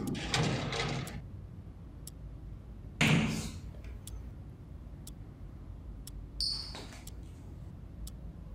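A noisy rush in the first second, then one sudden thump about three seconds in, the loudest sound; afterwards faint scattered clicks and a brief high squeak.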